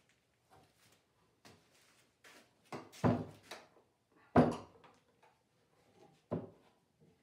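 Wooden knocks and metal clunks of a cutting-board glue-up held in bar clamps being handled and set down on a workbench. Three sharper knocks come about three, four and a half and six and a half seconds in, the middle one loudest, with lighter taps between.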